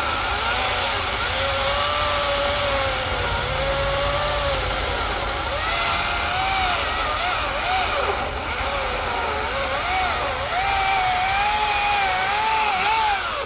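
Battery-powered chainsaw cutting through a thick hardwood log. Its motor whine wavers as the load changes, rises in pitch over the last few seconds, then stops suddenly at the end.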